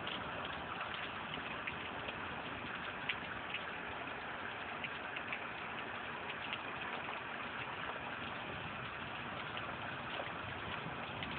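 Heavy rain falling steadily, a constant hiss with scattered sharper drop ticks, recorded through a cell phone's microphone.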